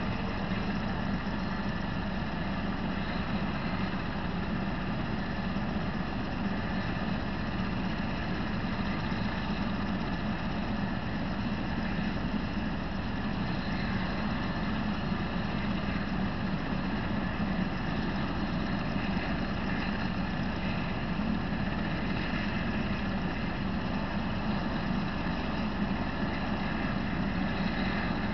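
Vehicle engine idling: a steady, unchanging low rumble with a constant hiss over it.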